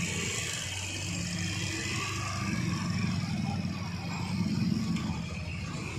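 Heavily loaded truck's diesel engine labouring under load on a steep climb, a steady low engine note that swells a little about four seconds in.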